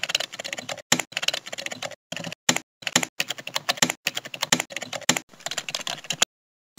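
Computer keyboard typing in quick runs of key clicks, broken by short pauses. It stops a little after six seconds, with one last brief click near the end.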